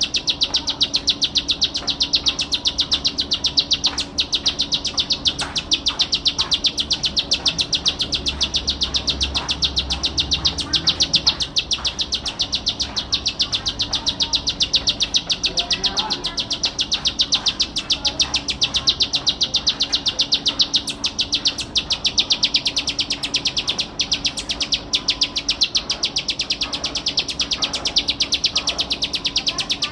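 Ciblek sawah, a small prinia, singing a long unbroken run of very fast, high chipping notes.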